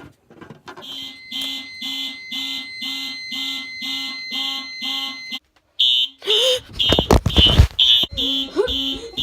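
Fire alarm system in alarm: horns pulsing about twice a second over a steady high beep from the panel or annunciator sounder. After a brief break a little past halfway the pulsing comes back louder, with heavy knocks and rumbling over it for a second or two.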